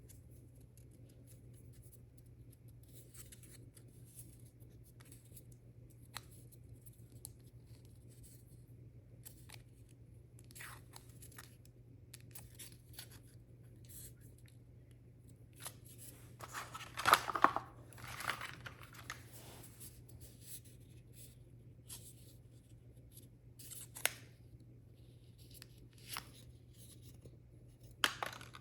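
Hands opening product packaging: scattered small clicks and scrapes of cardboard and plastic, with a louder tearing, crinkling burst a little past halfway and a few sharp clicks near the end.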